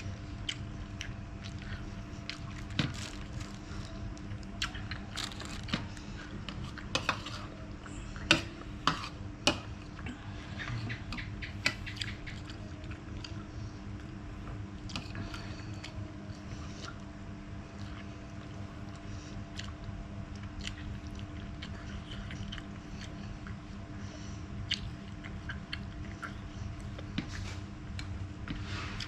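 A person chewing and biting crunchy food close to the microphone: irregular crunches and crackles, loudest about eight to twelve seconds in, over a steady low hum.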